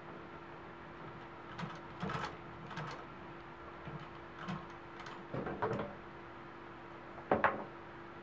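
Consew industrial sewing machine's motor humming steadily, with a few uneven knocks and clicks as the machine is worked slowly through the leather belt. The loudest knock comes near the end.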